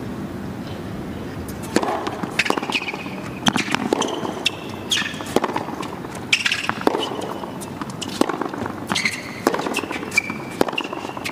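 Tennis rally on a hard court: sharp racket-on-ball strikes every second or so, with short high squeaks of shoes on the court between them.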